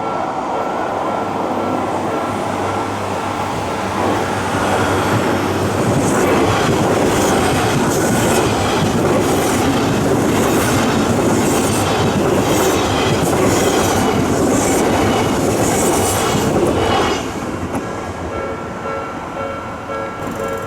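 Odakyu 8000 series train, two sets coupled, passing close by at speed, with its wheels clacking over the rail joints about once a second. It grows loud about four seconds in and falls away suddenly about seventeen seconds in. The level crossing's alarm rings steadily before the train arrives and again after it has passed.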